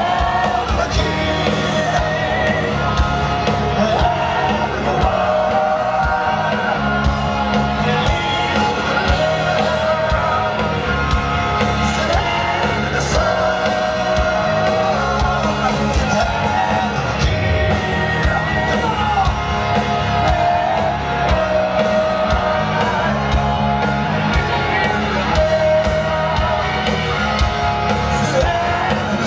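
Live heavy metal band performance: loud rock music with singing and a repeating melodic riff, and shouts from the crowd.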